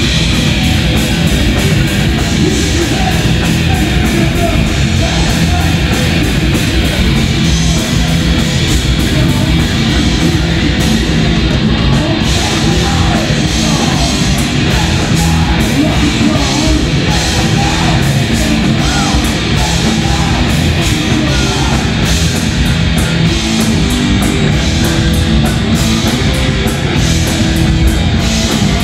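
Thrash metal band playing live at high volume: distorted electric guitars, bass and drums.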